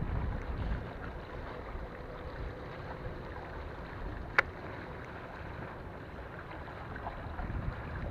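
Steady wind buffeting the microphone by open water, with one sharp click a little over halfway through.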